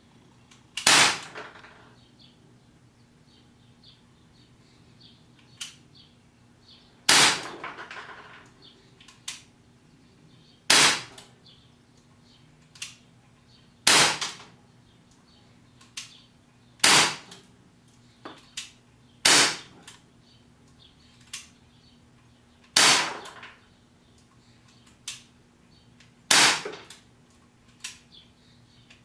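Umarex Glock 19 CO2 BB pistol (non-blowback) firing eight single shots, spaced irregularly about three to four seconds apart. Each shot is a sharp pop with a short decaying tail, and fainter clicks fall between the shots.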